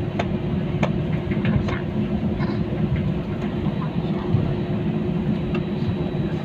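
Airliner cabin noise during taxi: a steady low rumble of the engines with a constant hum, and a few light knocks as the wheels roll over the taxiway.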